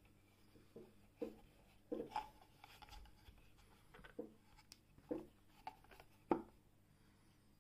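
Soft, irregular knocks and clicks of a hand handling an antique hand-crank sewing machine and its wooden base, the loudest one near the end.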